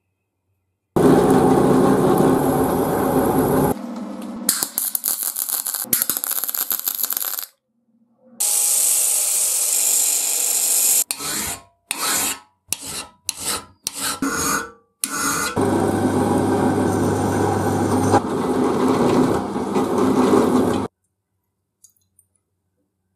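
Metalworking on a steel hacksaw frame, heard as a series of separate clips that start and stop abruptly: steady tool runs and long scraping stretches, then a hand file rasping across the frame clamped in a vise in about six separate strokes. Another steady run with a low hum follows and cuts off suddenly, leaving near silence at the end.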